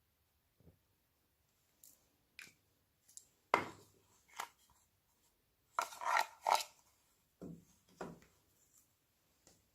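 Slime being worked by hand: a series of short, irregular sticky squishes and crackles with pauses between them, the loudest about a third of the way in and a quick cluster a little past the middle.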